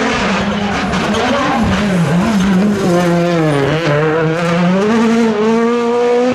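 Rally car's turbocharged four-cylinder engine at high revs as the car passes. The pitch drops briefly about two seconds in and again, more sharply, in the middle as the driver lifts or changes gear, then climbs steadily as it accelerates away.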